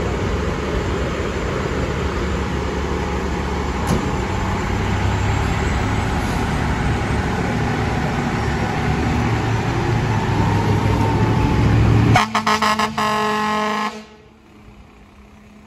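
The fire truck's engine runs loudly for about twelve seconds as the rig pulls out. Then the air horns of FDNY Tower Ladder 54, a 2016 Seagrave Attacker HD, sound in a quick series of short blasts for about two seconds and stop.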